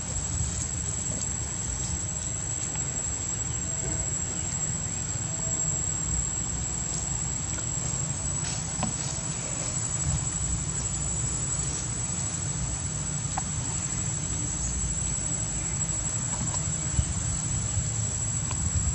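Steady high-pitched insect drone, unbroken throughout, over a low rumble and a few faint clicks.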